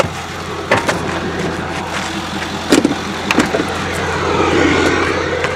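Loud rustling and scraping handling noise as the camera microphone rubs against fabric, with several sharp knocks and a louder scraping swell in the second half.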